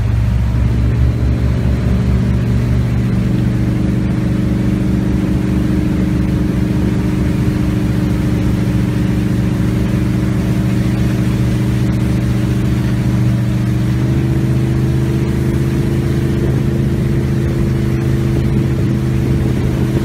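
Regal 2500 powerboat's engine running steadily underway, heard from aboard: a steady low hum whose pitch steps up slightly about fourteen seconds in.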